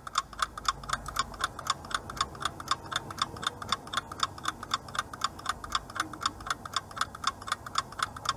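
Countdown-timer ticking sound effect, a fast, even clock-like tick, several ticks a second, that marks the seconds running out to answer.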